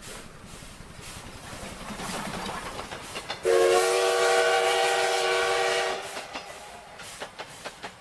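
A steam-train whistle blows once, held for about two and a half seconds with several pitches sounding together, starting about three and a half seconds in. Before it there is a steady rushing noise, and after it a run of light clicks.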